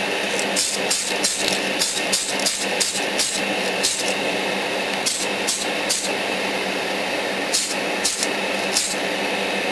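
An aerosol spray paint can giving many short hissing puffs, in quick clusters with a pause of a few seconds in the middle, over a steady hum that fits the spray booth's exhaust fan.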